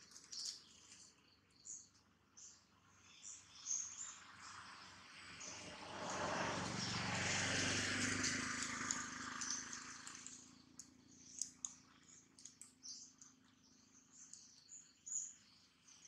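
Outdoor ambience of small birds chirping, with scattered light clicks and ticks. A broad rush of noise swells and fades over about five seconds midway through.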